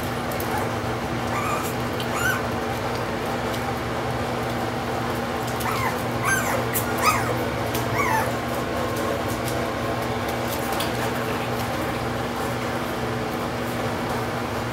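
Boston Terrier puppies, just under five weeks old, giving short high whines and yips, several in the first eight seconds or so, then only a few faint sounds, over a steady low hum.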